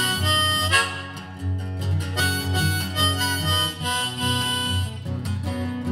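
Harmonica in a neck rack playing an instrumental break of held notes, over a strummed acoustic guitar.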